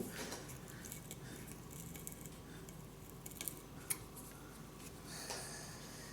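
Faint, scattered light clicks and ticks of small tools and hardware being handled, with two sharper ticks about three and a half and four seconds in.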